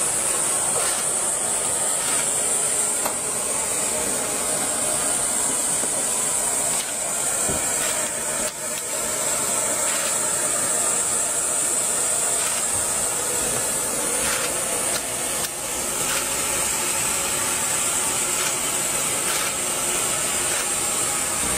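Steady, high-pitched hiss of rushing air, with a few faint ticks now and then.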